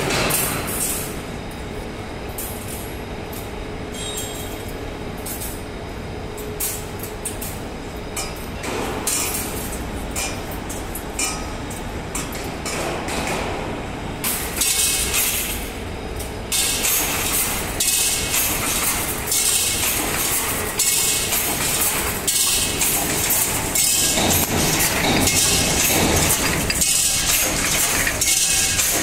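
Mechanical wire-mesh fence welding machine running, with repeated metallic clanking and clinking from its welding head and wire feed. It gets louder about halfway through and settles into a beat of roughly one stroke every second and a half.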